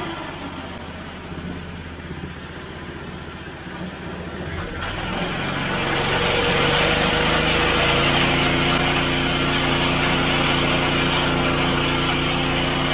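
Cycle kart's small engine running, then throttled up about five seconds in and held at a steady higher speed, turning the newly installed driveshaft as it is tested for vibration.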